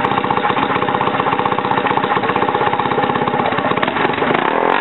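Small dirt bike engine idling steadily, heard close up.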